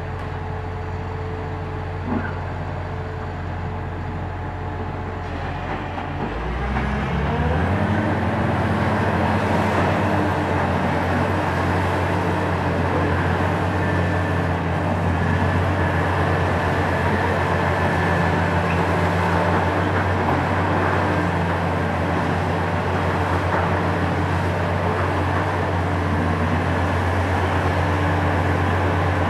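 Hitachi ZX870-3 high-reach demolition excavator's diesel engine running steadily, then revving up about six seconds in and running on louder at higher revs. A single small knock comes about two seconds in.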